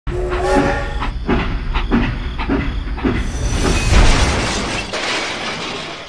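Steam train sounds: a train whistle for about a second, then about five chuffs roughly every half second, then a loud rushing noise that swells about four seconds in and fades away.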